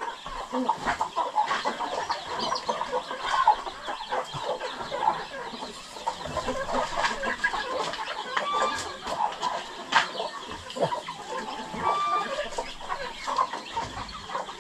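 Chickens clucking: many short clucks and calls, with a few sharp clicks.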